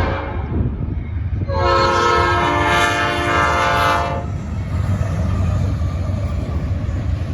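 Norfolk Southern freight locomotive's air horn: a short blast that ends about half a second in, then a longer blast of about two and a half seconds, over the steady low rumble of the passing train.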